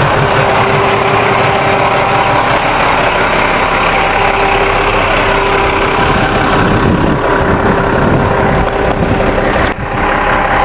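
Vehicle driving, heard from inside: a steady engine hum under loud, even road noise, with a brief drop in level about ten seconds in.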